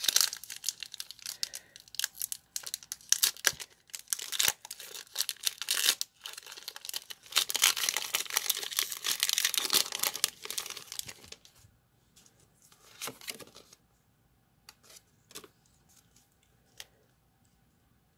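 Foil trading-card booster pack wrapper crinkling and tearing as it is opened, loudest around the middle. Near the end come only faint scattered rustles and taps of the cards being handled.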